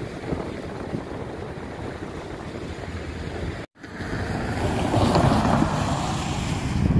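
Wind rumbling on the microphone, cut off for an instant about halfway through. After that it is louder, and a passing SUV adds a swell of tyre and engine noise.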